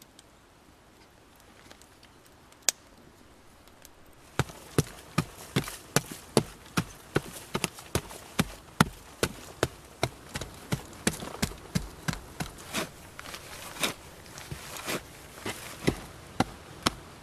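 A small pick chopping into packed earth in steady blows, about two and a half a second, starting about four seconds in. Before that it is mostly quiet apart from a single sharp knock.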